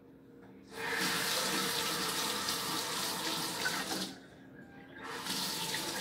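Kitchen faucet running into the sink, turned on about a second in for roughly three seconds, shut off, then turned on again about a second later.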